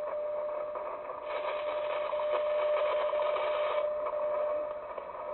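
Shortwave receiver (Sony ICF-2010) tuned to 5000 kHz AM, playing a steady single tone of about 600 Hz over static hiss, typical of a time-signal station on that frequency. The hiss turns brighter about a second in and duller near the end as the receiver's filter is switched between wide and narrow.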